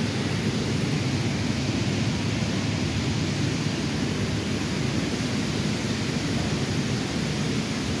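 Steady rushing of water falling down a building-side water wall, an artificial waterfall.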